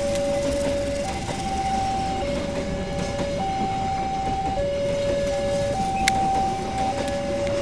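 Railway level-crossing warning alarm sounding a two-tone signal, a lower and a higher tone taking turns about once a second, over the rumble of passenger coaches rolling past. The alarm signals that the crossing is closed while a train passes. A single sharp click comes about six seconds in.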